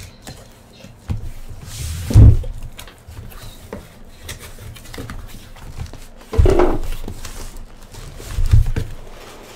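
Cardboard shipping case being opened by hand: flaps rustling and scraping, with three dull thumps as the flaps and the shrink-wrapped boxes inside are handled, the loudest about two seconds in.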